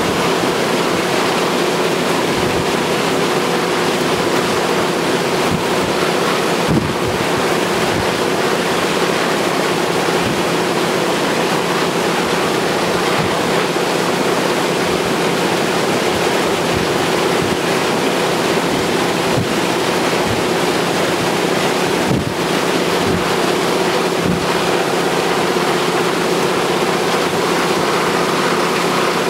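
Steady in-flight drone of aircraft engines and propellers under a heavy rush of wind noise on the microphone, with no change in pitch or level.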